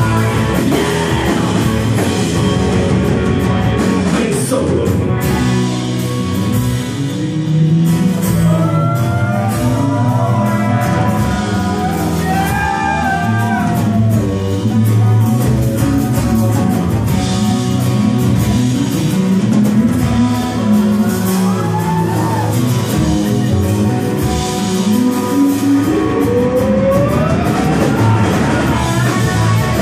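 Live rock band playing: electric guitar, acoustic guitar, bass guitar and drums with a singer's voice, loud and steady, with a melodic line bending up and down in the middle and a rising glide near the end.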